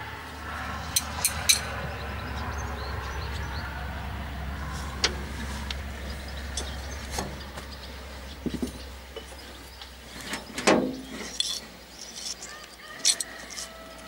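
Scattered metallic clinks and knocks of spanners and fittings as a fuel-injection-pump pipe is undone from a T-150K tractor's engine. A low steady hum sits underneath and fades out about halfway through.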